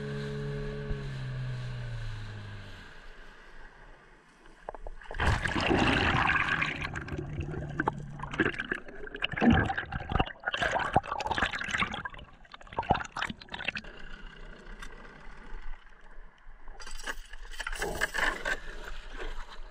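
Small outboard motor on an inflatable dinghy slowing down, its pitch falling over the first few seconds. Then irregular water splashing and bubbling, in bursts, from about five seconds in.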